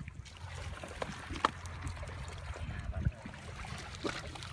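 Muddy water sloshing and dribbling as hands grope through a shallow, silty ditch, with a couple of sharper splashes, one about a second and a half in and another near the end.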